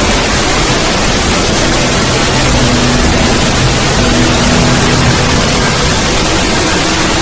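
Loud, steady static hiss, a synthetic distorted noise effect, with faint low held tones coming and going underneath.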